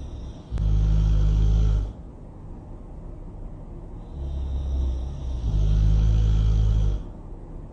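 Loud, deep snoring: two snores about five seconds apart. Each is a low rumbling breath followed by a louder, stronger snore lasting about a second and a half.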